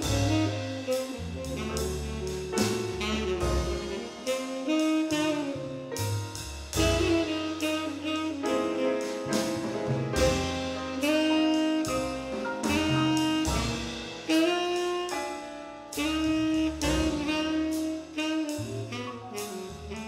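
Tenor saxophone playing a jazz melody line, with drum-kit accompaniment underneath.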